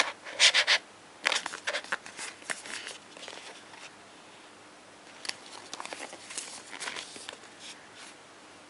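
Hands handling and turning a small cardboard phone box: fingers rubbing and scraping on the card. The loudest scrapes come in the first second, with scattered shorter ones after.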